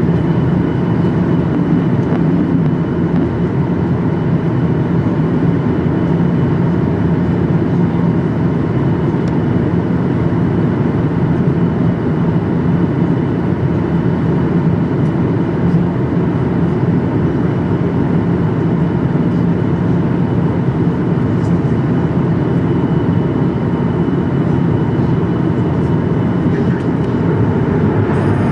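Airliner cabin noise in flight: a steady, loud, low rumble and rush of engines and airflow with a faint steady hum, unchanging throughout.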